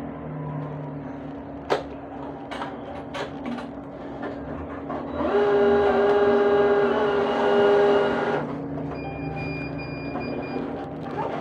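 Cash machine (ATM) working through a withdrawal: a few clicks, then its internal mechanism whirs loudly for about three seconds, followed by a high electronic beeping prompt.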